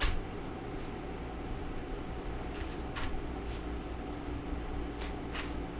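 Eating sounds: a few short clicks and scrapes of a fork in a foam takeout container of fried rice, with chewing, over a steady low background hum.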